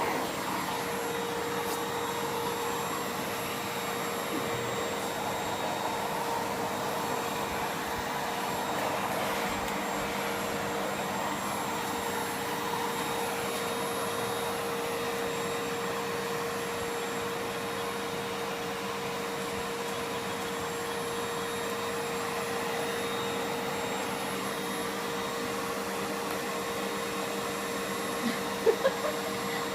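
Household vacuum cleaner running steadily, a continuous whirring hum with a steady pitched tone. A few short sharp knocks come near the end.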